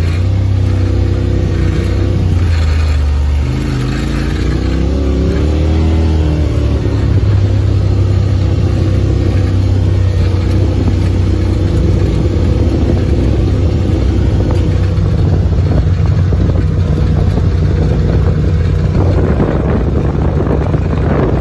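Off-road vehicle's engine heard from inside the open cab while driving a dirt track. Its pitch rises and falls over the first several seconds, then holds steady under a continuous rumble of tyres and wind.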